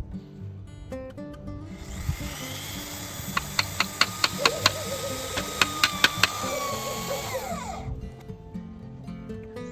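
An electric drill runs for about six seconds over background music. A dozen or so sharp clicks come in the middle, and its pitch falls as it spins down near the end.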